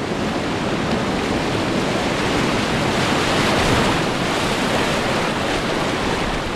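Whitewater rushing steadily through a rocky Class 3 river rapid.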